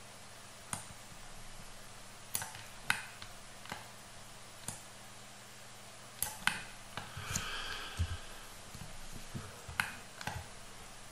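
Irregular clicks of a computer mouse and keyboard, about ten in all, with a short soft rustle a little past the middle.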